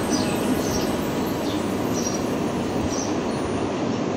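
Wire whisk beating thick gram-flour (besan) batter in a bowl: a steady wet swishing with light clicks of the wires against the bowl every second or so.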